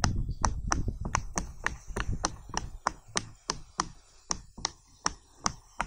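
Silicone pop-it fidget toy's bubbles pressed one after another with a pen tip, each giving a sharp pop, about three or four a second and spacing out a little toward the end. A low rumble under the first couple of seconds fades away.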